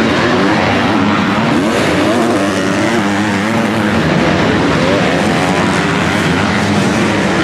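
MX2 motocross bike engines racing on a dirt track, revving hard with pitch rising and falling as riders go on and off the throttle through the turns.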